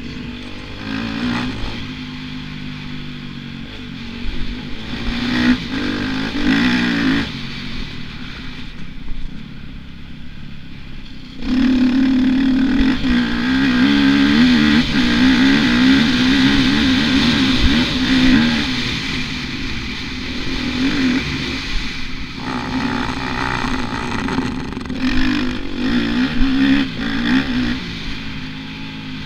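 Motocross bike engine revving hard and easing off again and again as it is ridden through the gears, heard close from on the bike. For about ten seconds from just before the middle it runs loudest and held high, pulling under load up a steep climb.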